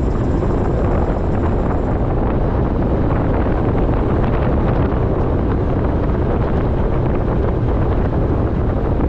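Wind buffeting the microphone of a motorcycle-mounted action camera at riding speed: a steady, dense low rumble with no clear engine note.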